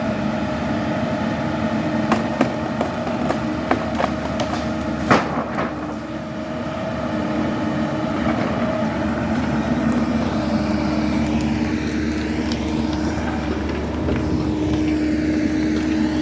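An engine running steadily. Between about two and six seconds in, a series of sharp cracks or knocks sounds over it, the loudest about five seconds in.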